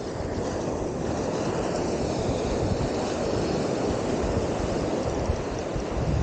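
Surf breaking and washing up the beach, with wind buffeting the microphone: a steady rushing noise that swells slightly about a second in.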